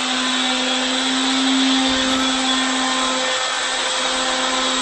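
Electric power tool motor running steadily at a constant speed: a steady whine with hiss over it.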